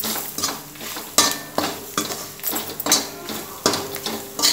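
Metal spatula scraping and knocking around an aluminium kadhai while stirring frying green chillies and garlic, about two strokes a second. Only a faint sizzle is left under the scraping: the water has cooked out of the chillies, the sign that they are done.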